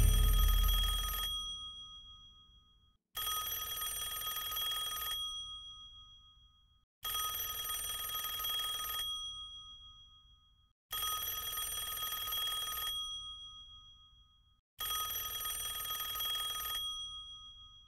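Telephone bell ringing, ring after ring about every four seconds, each ring lasting about two seconds before fading.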